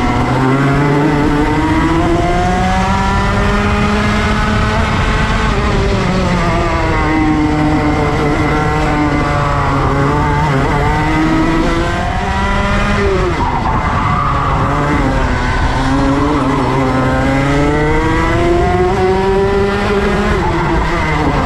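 Racing kart engine heard on board at full pace, its pitch climbing as it accelerates and dropping as it slows, over and over, about five times.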